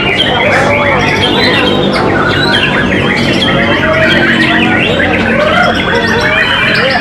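White-rumped shama (murai batu) singing a fast, varied song of rapid whistled glides and harsh chattering notes, with other birds' calls overlapping it.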